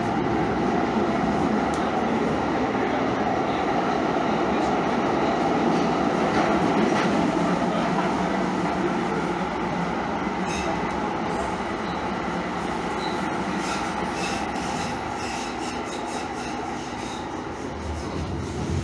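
Calgary Transit CTrain light-rail train running along the track: a steady rumble and hiss, with scattered clicks in the second half that ease off slightly near the end.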